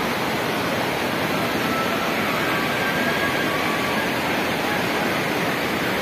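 Waterfall's steady rush of falling water, an even wash of noise that does not change.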